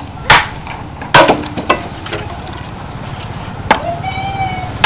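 Restored farming knife chopping into wood: four loud, sharp strikes at uneven intervals, with a lighter one after the second.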